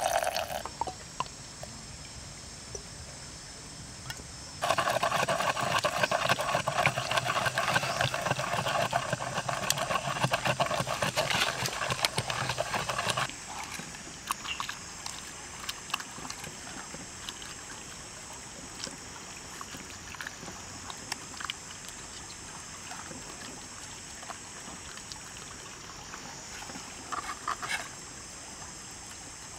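Raw chicken being handled and rubbed with wet chili paste over a clay mortar, with scattered soft wet clicks and squelches, against a steady high drone of forest insects. From about five seconds in, a louder buzzing drone joins and cuts off suddenly about eight seconds later.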